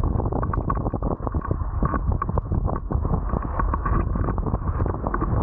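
Wind rushing over the camera microphone, with water splashing and slapping against a wingfoil sinkerboard as it moves through choppy water, many short splashes scattered throughout.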